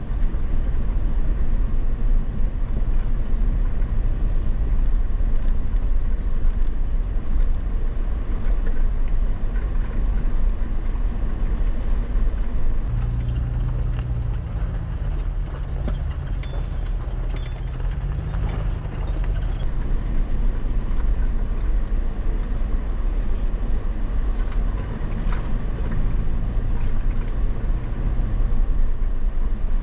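An off-road vehicle driving a dirt trail: a steady low engine and road rumble whose engine note shifts in pitch a few times, with scattered knocks and rattles from the rough ground.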